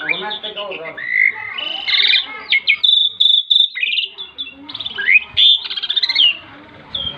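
Caged pied starling (jalak suren) singing a varied song of rapid whistled chatter and rising and falling notes, with a held high whistle about three seconds in.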